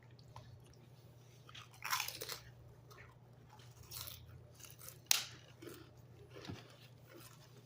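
A person chewing and biting food close to the microphone, with several short crunches; the sharpest crunch comes about five seconds in.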